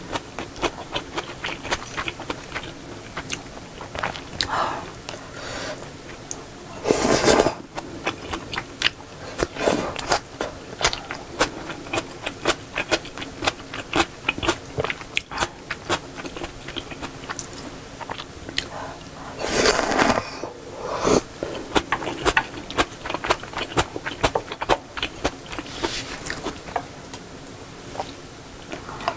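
Close-miked eating: chewing of seafood jjamppong noodles and shrimp fried rice, with many sharp clicks of chopsticks and a spoon against bowls. Two longer, louder noisy sounds come about seven and twenty seconds in.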